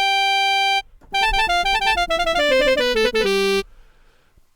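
Sampled clarinet soundfont preset played from a keyboard: a held note, a short break, then a quick run of notes ending on a held note that cuts off about three and a half seconds in.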